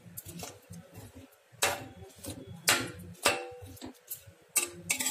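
A spatula clinking and scraping against a kadhai while stirring radish sticks in a little water. About five sharp clinks, irregularly spaced, each with a short metallic ring.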